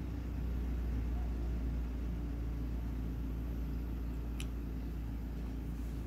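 Steady low engine rumble, with one sharp click about four and a half seconds in.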